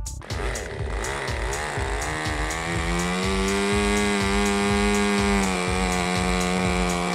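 Small two-stroke model glow engine (an O.S. .32) on a foam-board control-line flying wing running on the ground, its pitch wavering for the first couple of seconds after it fires up, then holding a steady high whine that drops slightly about five seconds in.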